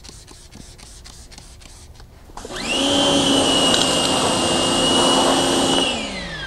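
Electric pressure washer starting up about two seconds in with a quickly rising whine, then running steadily with water spraying hard against an alloy wheel, and spinning down with a falling whine near the end.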